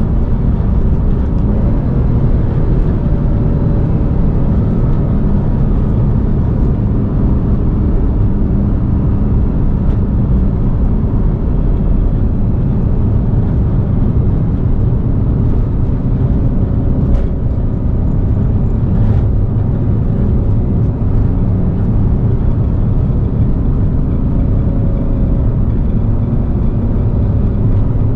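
2014 Porsche 911's flat-six engine running steadily while the car is driven, its hum under a dense low rumble of road noise.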